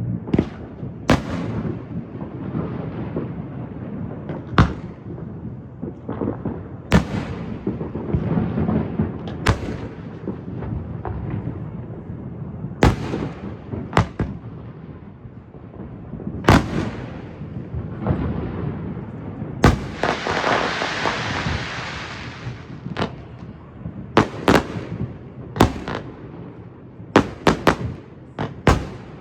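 Fireworks show: aerial shells bursting with sharp bangs every second or two over a low rolling rumble. About twenty seconds in a crackling hiss lasts two or three seconds, and near the end the bangs come in quicker succession.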